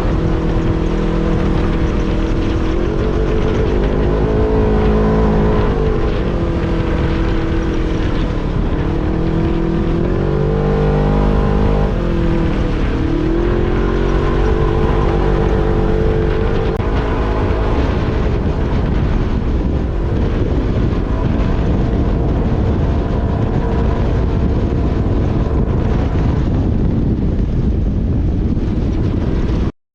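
Polaris RZR XP 1000 side-by-side's twin-cylinder engine running under way, its pitch rising and falling with the throttle and dipping sharply twice in the first half, then holding steadier. The sound cuts out for a moment near the end.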